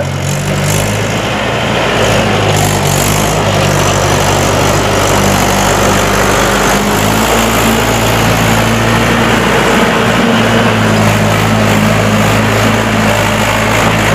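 Mahindra 575 DI tractor's four-cylinder diesel engine running hard under heavy load, pulling a loaded trailer through mud with its front wheels lifted off the ground. It builds over the first couple of seconds, then holds a steady, loud note.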